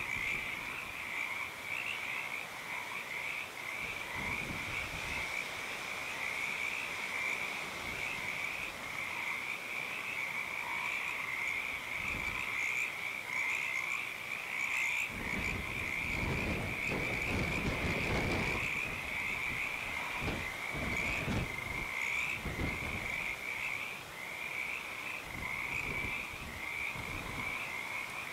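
A chorus of many frogs calling together without a break, their rapid trilling calls overlapping into a dense high-pitched din. A low rumble rises under it about halfway through and comes and goes near the end.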